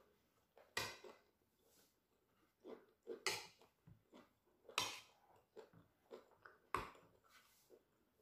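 A metal fork clinking and scraping against a plate, four sharp clinks spread out, with softer chewing sounds in between.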